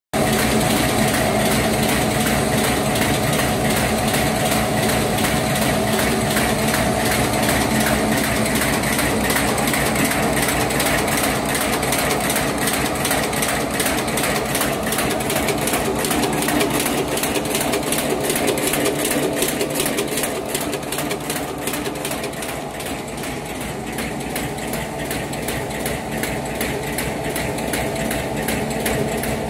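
LSD-700B automatic high-speed paper bag making machine running in production at about 159 bags a minute: a steady mechanical running noise with a fast, even beat of its cutting and folding strokes. It grows a little quieter after about twenty seconds.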